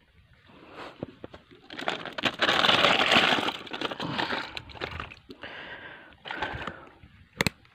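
Close rustling and crackling of leaves and fern fronds brushing past, loudest about two to four seconds in, with a sharp click near the end.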